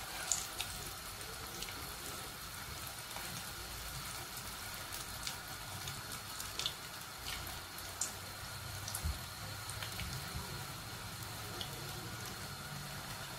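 Seeni paniyaram (sweet rice-flour and sugar fritters) deep-frying in hot oil in a pot: a steady bubbling fizz with scattered small pops and crackles.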